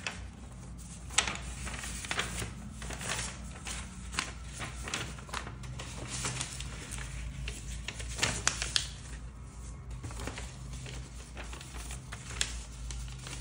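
Scattered light clicks and short rustles of objects being handled, over a steady low hum.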